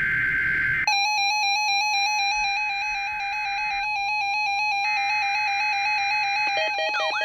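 NOAA Weather Radio EAS SAME header data bursts for a required weekly test: the end of the first screeching data burst, then two more about a second apart. From about a second in, a weather radio receiver's buzzy electronic alert tone sounds steadily over them.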